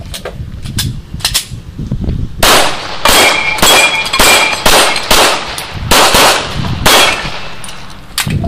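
A competitor's pistol firing a string of about ten shots, roughly half a second apart, on a USPSA stage, with steel targets ringing after some hits. A few fainter cracks come first, before the loud string begins.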